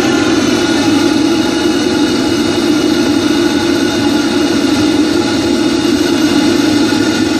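Homemade bucket furnace firing to melt aluminium: its burner makes a loud, steady rushing noise that does not change.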